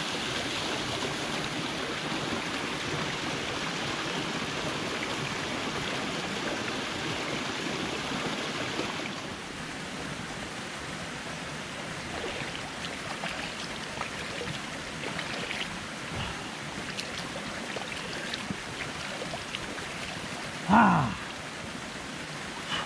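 Mountain stream water rushing steadily over a small waterfall, louder for the first nine seconds or so and quieter after that. Small splashes from a hand scooping water from the pool follow. Near the end comes a short, loud call that falls in pitch.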